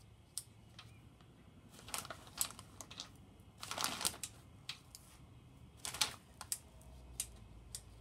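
Scattered light clicks and a few short scraping, rustling bursts as roller lifters are pulled out of their bores in a Ford 7.3 IDI diesel block and handled.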